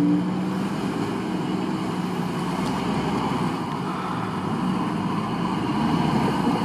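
Engine of a 4x4 off-road SUV running steadily as it crawls through deep mud ruts.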